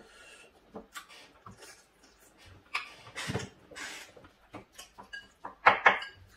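Mealtime eating sounds: utensils clicking against dishes and bowls, chewing, and slurping from a bowl, with the loudest bursts near the end.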